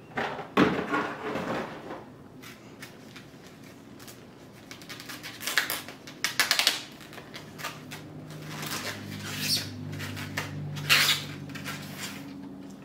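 A cardboard box knocks sharply against the counter about half a second in. Then comes the rustling and crinkling of the camera's soft white packaging wrap as it is pulled off by hand, in short bursts. A low steady hum comes in about eight seconds in.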